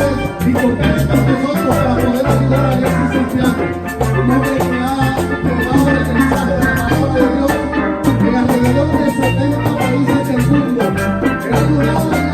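Latin-style music with bass and dense percussion on a steady beat.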